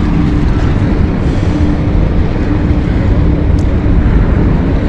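Wind rumbling hard on the microphone over open water, with a faint steady hum underneath.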